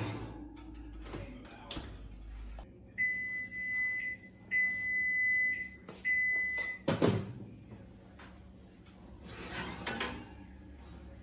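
An electric oven's electronic beeper sounding three long beeps at one high pitch, starting about 3 s in. A short thump follows about 7 s in, then softer handling noise of a baking dish on the oven rack near the end.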